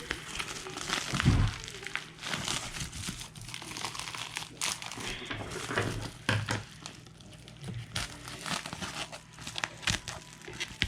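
Plastic shrink wrap crinkling and tearing as it is pulled off a box, with a dull thump about a second in and a few more soft knocks later.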